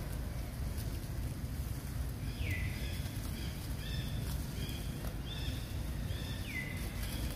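High-pitched chirping animal calls, starting about two seconds in: short repeated notes and a couple of calls that sweep sharply downward. They sit over a steady low outdoor rumble.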